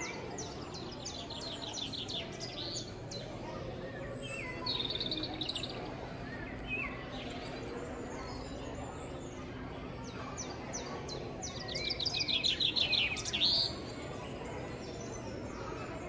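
Recorded birdsong playing in a museum bird exhibit: several bursts of rapid high chirping and a few short rising whistles over a steady low room hum, with the loudest run of chirps coming late on.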